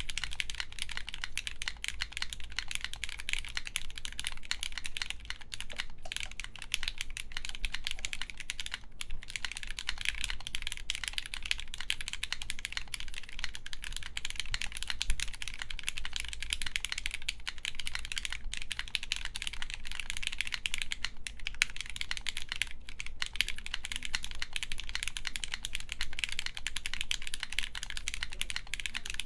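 Continuous typing on a mechanical keyboard with lubed Gateron X linear switches, an FR4 plate and R4-profile keycaps: a dense stream of key clacks, broken by two brief pauses.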